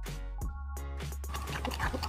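Background music with a steady bass and plucked notes. From a little past halfway, the wet stirring and scraping of a spoon mixing batter in a glass bowl comes in under it.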